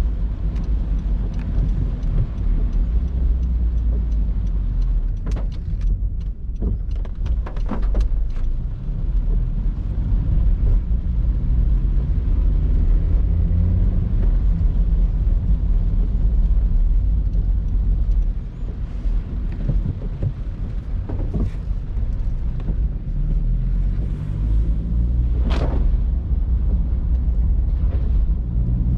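Honda CR-Z driving, with a steady low rumble of engine and road noise that rises and falls slightly, and a few short sharp clicks along the way.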